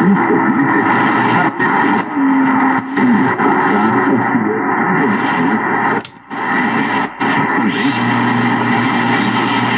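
Drake 2-B vintage tube ham receiver's speaker hissing with band noise and static while being tuned across the 40-meter band, with wavering whistles from signals passing through the tuning. A sharp click and a brief drop in the noise come about six seconds in.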